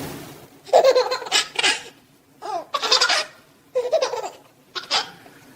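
A baby laughing in four bouts of giggles, with short pauses between them.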